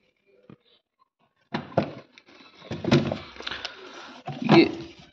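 Food containers being moved around inside an open refrigerator: plastic and glass knocking and sliding on the shelves and drawer. The first second and a half is nearly silent, then comes a run of irregular knocks and rubbing.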